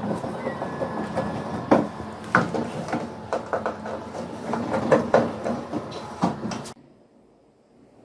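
Irregular clicks and knocks of a washing machine's rear panel being handled while its screws are put in and tightened by hand. The sound cuts off abruptly near the end.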